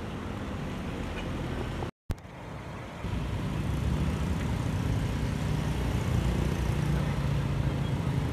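Road traffic noise: a steady low rumble of passing vehicle engines. It cuts out briefly about two seconds in, then comes back louder.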